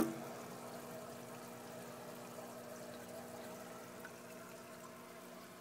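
Water running and bubbling in an aquaponics fish tank, over a steady pump hum. A brief knock at the very start.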